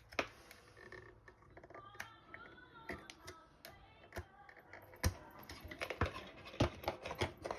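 Irregular plastic clicks and taps from handling a fridge freezer's fan motor and fan parts, growing busier and louder in the last few seconds.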